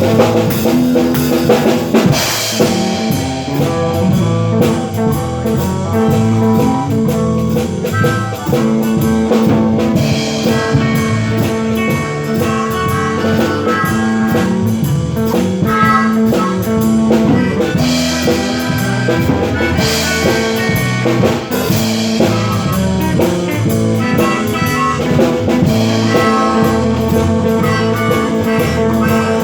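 Blues band playing an instrumental passage between sung verses: guitar over a steady drum kit beat.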